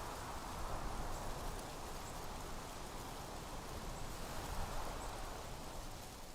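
Outdoor evening ambience: a steady hiss with a low rumble and faint high ticks about once a second, beginning to fade out near the end.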